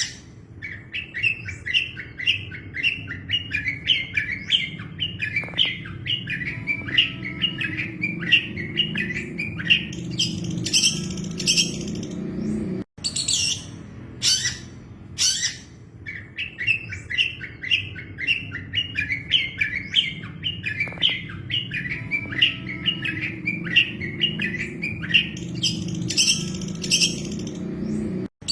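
Long-tailed shrike (cendet) song: a fast chattering run of notes followed by a few sharp, high-pitched calls, the whole passage played twice as a loop with a brief cut between repeats. A steady low hum runs underneath.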